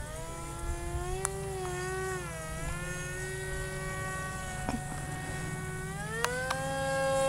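Electric motor and propeller of a Depron foam RC plane whining, its pitch dipping and rising with throttle changes, then climbing near the end as the throttle is opened up. A few sharp clicks sound along with it.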